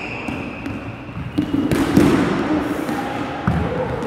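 Dodgeballs bouncing and thudding on a hardwood gym floor during a dodgeball game, a few hits with the loudest about two seconds in, echoing in the large hall.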